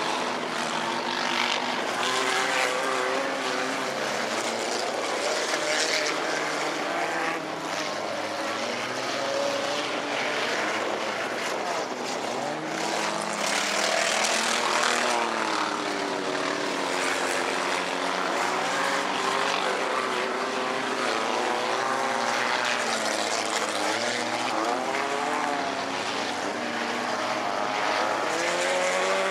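Several four-cylinder bomber race cars' engines running on a dirt oval, many overlapping engine notes rising and falling as the cars accelerate and lift through the turns.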